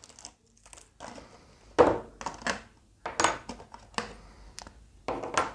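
Small hard parts of a model car kit clicking and clattering by hand as they are unpacked on a table: a string of irregular sharp clicks and short rattles.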